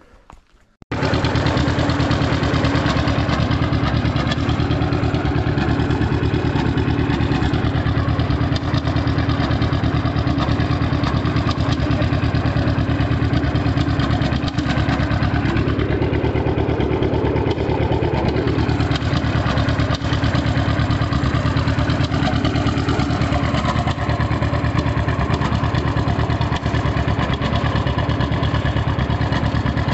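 John Deere G's two-cylinder engine running loud and steady with a fast, even firing beat. It starts about a second in, and its sound rises and falls briefly about halfway through.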